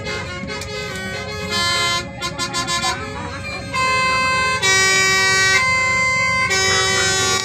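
Bus basuri musical air horns (telolet horns) playing a tune: several held horn tones sounding together as chords that step from note to note, louder from about four seconds in.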